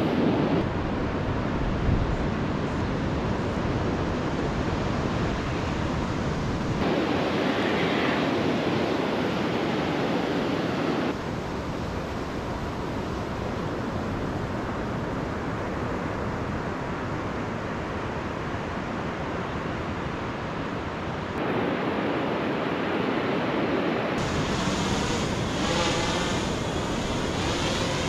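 Surf breaking and washing up a beach, with wind on the microphone; the level jumps abruptly several times. About four seconds before the end, the wavering whine of a fishing drone's propellers joins in.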